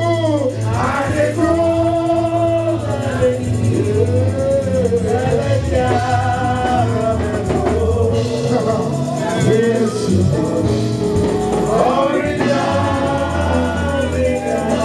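Gospel worship singing: voices sing a sustained, flowing melody over a steady bass accompaniment.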